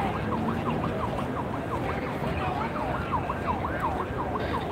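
A siren in fast yelp mode, its pitch sweeping up and down around five times a second over a steady low background noise.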